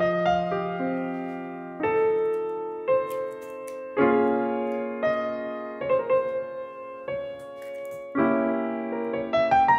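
Background music: piano playing slow chords, a new chord struck every second or two and left to ring.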